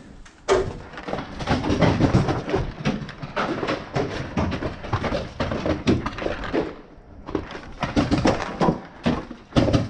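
Close-up movement noise from a player walking over leaf-strewn ground: irregular footsteps and rustling of gear, with a short lull about seven seconds in.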